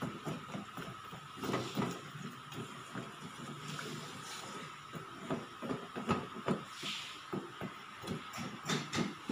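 A metal spoon stirring lumps of palm sugar in water in a stainless steel pot, with many quick clinks and scrapes against the pot and the sugar. Around the middle, water is poured in from a jug.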